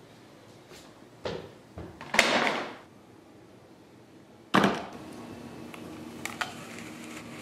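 Knocks and a rustling clatter of game cards and boards on a wooden floor. Then, over a low steady hum, a crisp crunching bite into a green apple.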